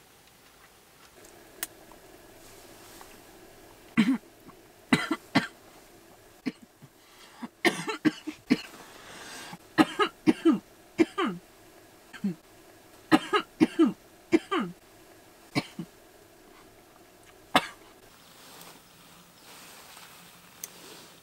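A woman coughing hard in repeated fits: clusters of sharp, loud coughs, some with a short falling vocal tail, from about four seconds in until a last single cough near the end.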